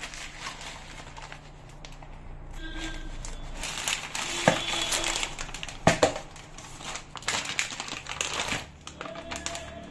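Plastic fish packaging crinkling and rustling as it is cut open and handled, with a couple of sharp clicks, about four and a half and six seconds in.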